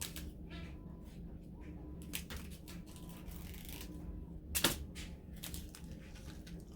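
Small resin diamond-painting drills clicking and rattling as they are handled and poured into a small plastic storage container: a scattered series of sharp clicks, the loudest about four and a half seconds in.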